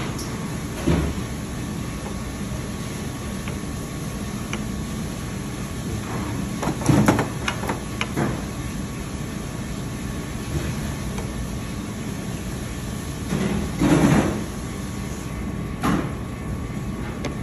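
Steady hum of kitchen background noise, with a few short clatters of metal tongs against the plate as green beans are set down, loudest about seven and fourteen seconds in.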